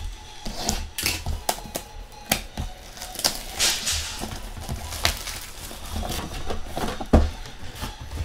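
Trading cards and their packaging being handled on a table: a string of irregular clicks, taps and rustles, with a longer rustle about halfway through.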